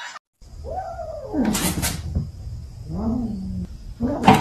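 A cat meowing twice: a long meow that falls in pitch, then a shorter, lower meow. A sharp knock follows near the end.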